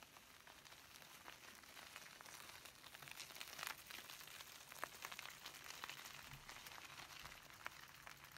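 Faint crunching and ticking of bicycle tyres rolling over a gravel road as the bike passes close by, loudest about halfway through and fading as it rides away.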